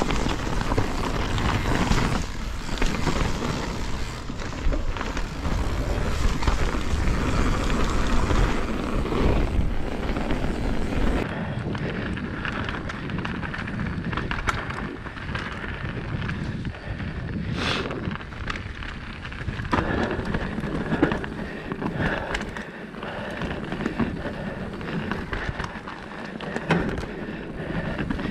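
A mountain bike riding fast down a dirt forest trail: wind rushing over the GoPro microphone and tyres rolling on dirt, with frequent rattles and knocks from the bike over roots and stones. The low wind rush drops off about eleven seconds in.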